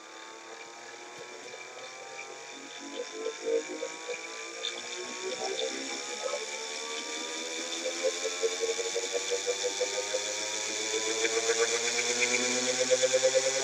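Air-core motor generator spinning up: a whine made of several tones that rise steadily in pitch and grow louder as the rotor gathers speed. A fast pulsing throb sets in from about halfway.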